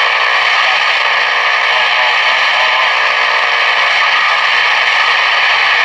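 Steady static and hiss from a Zenith 6S527 tube radio's speaker as it is tuned between stations, with faint wavering tones under the noise.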